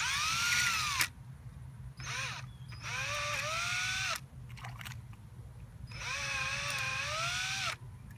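Cordless power drill spinning a spool on its chuck to reel in fishing line, run in four bursts. The motor's whine rises and falls in pitch within each burst. The last burst, from about six seconds in, is the longest.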